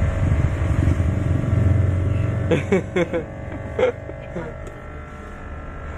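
Loud low hum (dengung) from a homemade audio amplifier board with a faulty power supply, its filter having gone dead; the hum drops away about two seconds in, leaving a faint steady whine and a few short blips.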